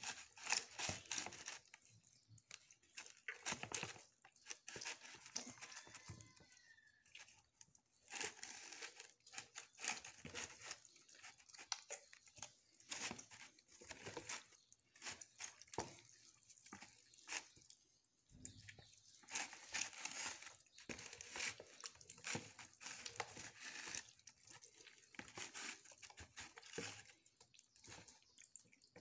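Hands squishing and rubbing a wet chermoula marinade into a whole raw chicken in a plastic bowl: irregular wet squelches and slaps.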